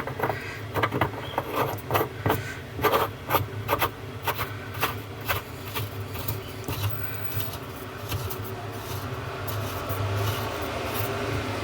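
The washing machine's large central tub nut is being threaded by hand onto the right-hand-threaded basket shaft. It makes irregular light knocks and clicks, then a steadier scraping rub over the last few seconds.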